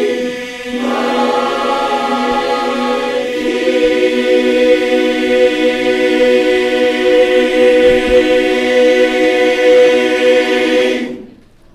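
Men's barbershop chorus singing a cappella in close harmony: a couple of chords, then a long held final chord that ends the song and cuts off cleanly about a second before the end.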